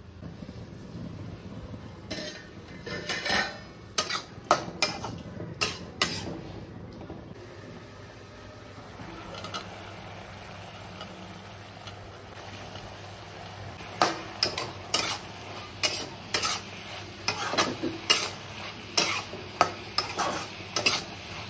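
Chicken being stirred in a kadhai with a spatula: two spells of quick scraping, clattering strokes against the pan, with a steady sizzle of frying underneath.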